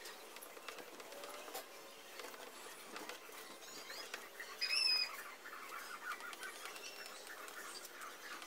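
Light scraping and tapping of a small spatula spreading wood filler into the knots of a wooden tabletop, with one short high chirp a little before halfway through.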